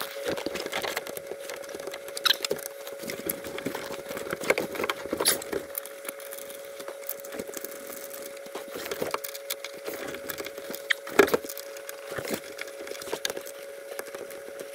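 Scattered small clicks, taps and rustles of hands working nuts onto the metal studs of a convertible top's rear rail, with the sharpest click about 11 seconds in. A faint steady hum runs underneath.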